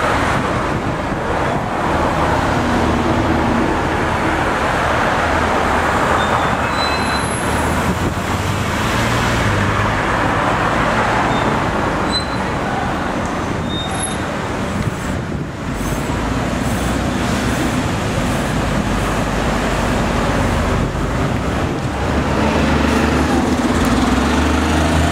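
Busy city street traffic: cars and buses running and passing in a steady wash of road noise, with a low engine hum underneath and a few brief high squeaks.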